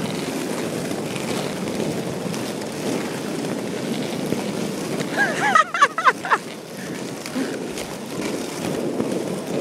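Roller skate wheels rolling over rough, cracked asphalt: a steady rolling noise. About five seconds in, a voice lets out a brief shout.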